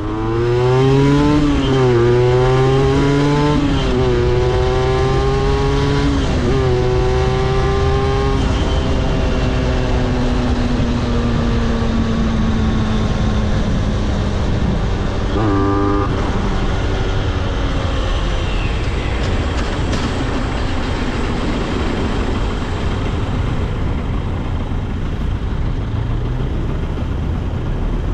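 Aprilia RS50's 50cc two-stroke engine accelerating through the gears: its pitch climbs and drops back four times in the first eight seconds, once at each upshift. It then holds a steady, slowly falling note, with a brief rev about halfway through, over a steady rushing noise.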